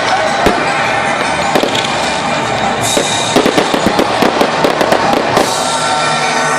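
Fireworks going off: a dense, rapid string of bangs and crackles.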